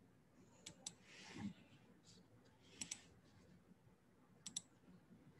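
Near silence with faint computer clicks: three pairs of sharp clicks about two seconds apart, and a brief soft rustle about a second in.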